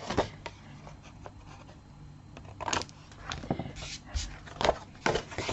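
Paper and card being handled and cut: a scattered series of short rustles and snips while a notch is cut so the piece can slide into its slot.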